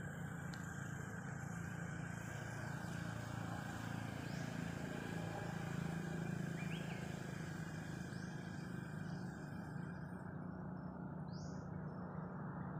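Steady hum of road traffic, motorbikes and cars passing, with a few short high chirps over it.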